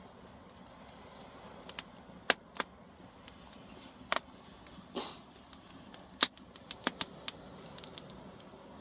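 Driftwood campfire crackling, with a low steady hiss and sharp pops at irregular intervals, about a dozen in all; the fire is still burning hot.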